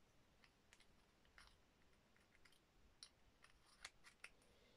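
Near silence: room tone with a few faint, scattered small clicks.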